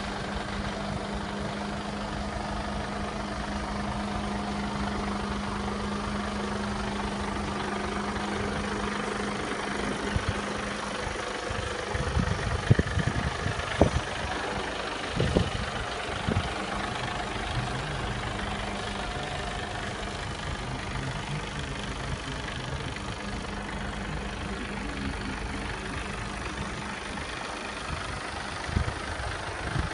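Mercedes-Benz Actros 2545 tractor unit's diesel engine idling steadily, its hum fading somewhat about ten seconds in, with a few low thumps in the middle and near the end.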